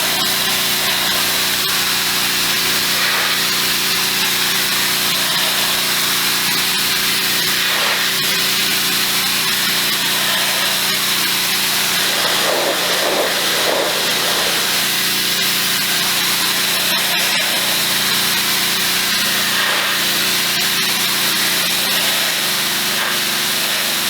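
Pressure washer running steadily, its motor and pump humming under the hiss of the water jet.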